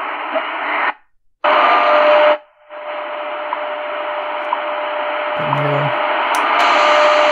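Tecsun PL-450 portable shortwave radio's speaker hissing with shortwave static as its presets are changed, cutting out briefly about a second in and again about two and a half seconds in as it jumps between stations. After the switch to 5000 kHz, a steady tone runs under the static, with a click near the end.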